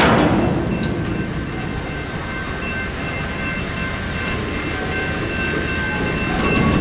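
A freight train of empty intermodal well cars rolls through a level crossing with a steady rumble of wheels on rail, louder at the start and again near the end. The crossing's warning bells ring over it as steady tones.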